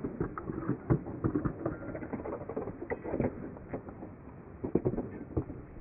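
Irregular footsteps and scuffs on a textured paved path, with sharp knocks and a clatter from a dropped plastic retractable dog-leash handle hitting and dragging along the ground.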